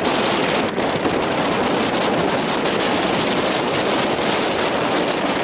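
Strong wind buffeting the microphone, with the rush of waves and water, in a steady loud noise.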